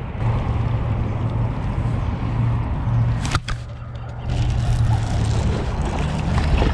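A boat motor running with a steady low hum. A sharp click comes a little past three seconds in, followed by rubbing handling noise as fingers brush over the camera.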